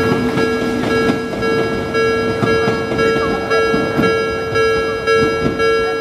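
Japanese railway level-crossing warning bell ringing its steady, evenly repeating electronic tone, with train running noise underneath.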